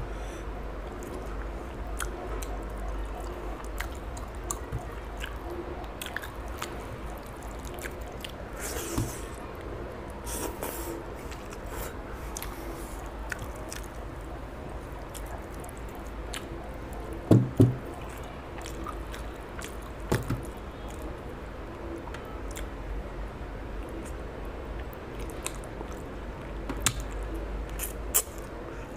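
Wet squishing and chewing as fish curry and rice are mixed by hand and eaten, with many small scattered mouth and finger clicks over a steady low hum. Louder low thumps come twice, about two-thirds of the way through.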